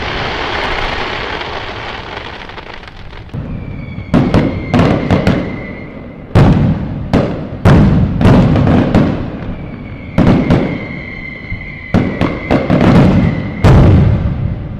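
Fireworks going off: a fading crackle at first, then a rapid run of sharp bangs from about four seconds in, with a steady high whistle sounding over them twice.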